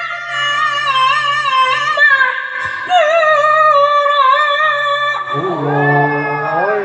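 A qari reciting the Quran in melodic tilawah, holding a long, high, ornamented melisma on the closing word of a verse. Near the end a second, much lower man's voice comes in, rising in pitch.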